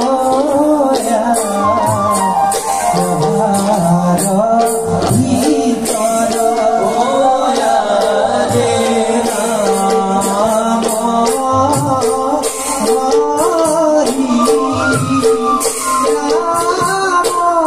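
Live bhaona stage music: singing over a steady held instrumental note, with a jingling percussion instrument shaken every few seconds.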